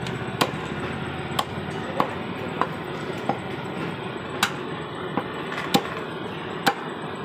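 Butcher's cleaver chopping through a lamb head into a wooden tree-stump chopping block: sharp single knocks at an uneven pace of roughly one a second, about nine in all.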